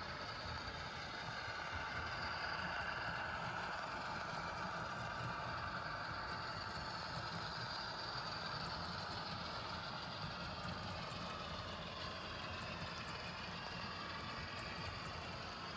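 HO scale model train running on the layout track: a steady motor and wheel sound with a faint whine that slowly rises and falls in pitch.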